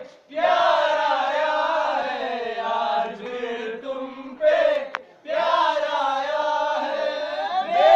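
A group of young men singing a song together in unison: one long sung phrase, a short break about five seconds in, then the next phrase.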